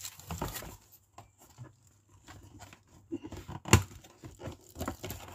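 Plastic wrapping crinkling and cardboard rustling and clicking as a condenser microphone kit is packed back into its box, with one sharp knock a little past the middle.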